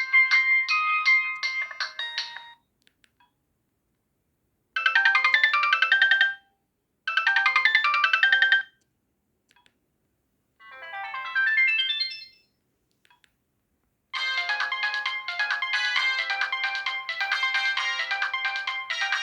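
Sony Ericsson J120i mobile phone playing its built-in ringtone melodies one after another, with short silences between them. One tune ends about two seconds in, and three brief snippets follow, the third climbing in pitch. A longer, busier melody starts about two-thirds of the way through.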